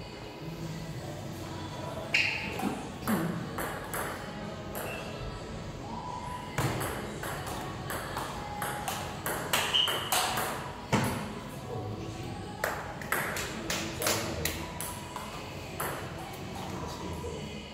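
Table tennis play: the ball clicking off the bats and bouncing on the table in quick runs of strikes, in several separate rallies with short pauses between them.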